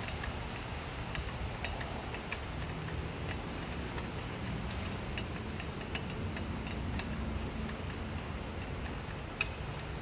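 Scattered, irregular light clicks and ticks of a wrench and screwdriver working a screw loose on a pocket bike's gas tank, over a steady low background rumble.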